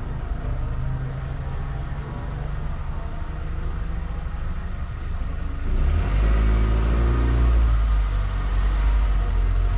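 Car driving on a road: a steady low rumble of engine and tyre noise, which grows louder a little over halfway through.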